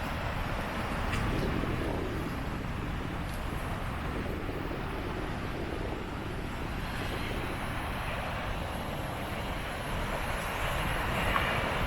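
Steady outdoor background noise: an even, continuous haze with no single clear source standing out.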